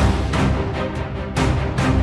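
Music with heavy bass and a strong beat struck about twice a second.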